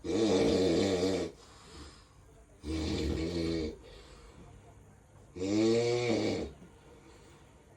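Snoring: three loud snores, each about a second long, coming every two to three seconds, with a pitched, wavering rattle to each breath.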